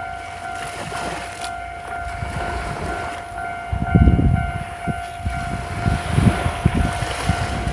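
Wind buffeting the microphone on a seashore over the wash of waves, gusting harder from about halfway in. A steady, high droning tone of unknown source runs underneath.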